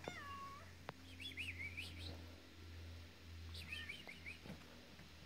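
High-pitched squeaky whines from a pet: a short falling whine at the start, then a run of wavering squeaks about a second in and another run near four seconds.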